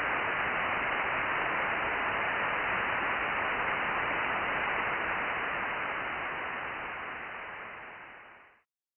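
Receiver static from an Icom IC-9700 transceiver tuned to the satellite downlink, a steady hiss with no station on frequency. About six seconds in it starts to fade, and it stops just before the end.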